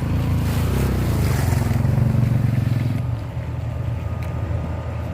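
A truck's diesel engine running hard, loud for about three seconds and then dropping to a lower, steadier rumble.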